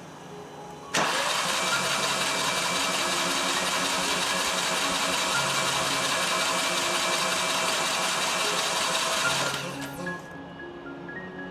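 Fiat 500's 0.9 TwinAir two-cylinder engine starts abruptly about a second in, runs steadily for about eight seconds and then dies away, with background music throughout.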